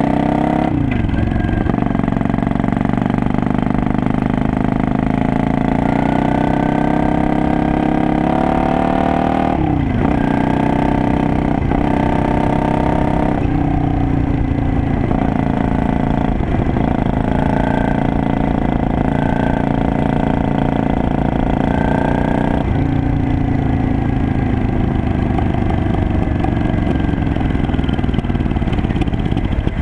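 Custom scrambler motorcycle engine and exhaust under way, pulling through the gears: the revs climb, then drop sharply at each of several shifts. Over the last few seconds the revs fall steadily as the throttle is rolled off.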